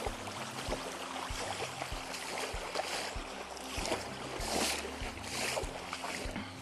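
Footsteps wading through a shallow river in motorcycle boots: water splashing and sloshing with each stride, with a soft thump about every two-thirds of a second. The splashes are loudest a little past the middle.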